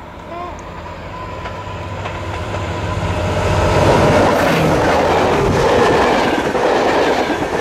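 Hellenic Railways (OSE) class 220 diesel locomotive hauling passenger coaches approaches and passes close by, growing steadily louder until it goes past about four seconds in. The coaches then follow with the clickety-clack of wheels over the rails.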